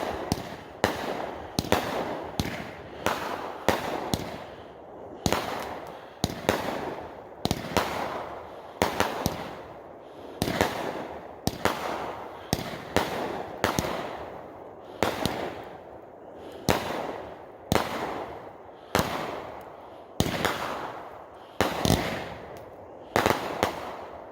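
Boogie Woogie multi-shot firework cake by Legend Fireworks firing its tubes one after another, about one shot every three-quarters of a second. Each shot is a sharp launch thump followed closely by the shell's break, with crackle trailing off between shots. The barrage stops just before the end.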